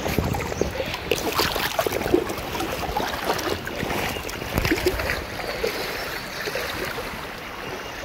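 Water sloshing and splashing irregularly around legs wading through a shallow river, over the steady rush of the flowing current.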